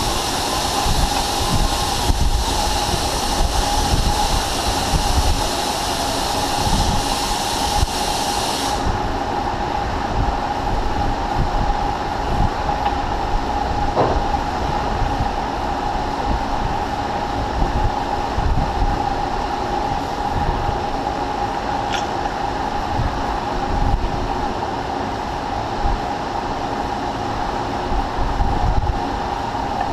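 Steady machine-shop drone, a constant hum over a low rumble, as shop machinery runs. A high hiss in it cuts off about nine seconds in, and there are a couple of faint ticks later on.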